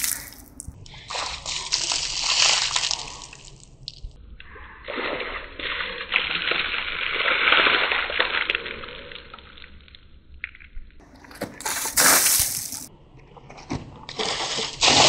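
Ice water thrown and poured over a person, from a bowl and then from a bucket tipped over his head: about five separate bursts of splashing and spattering, one of them a long pour lasting several seconds.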